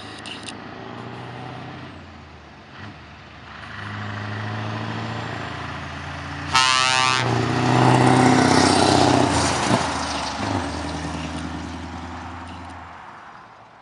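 Scania R500 truck's V8 diesel engine running, growing louder to a peak a little past the middle and then fading away, as when the truck drives past. About halfway through, a short blast of an air horn.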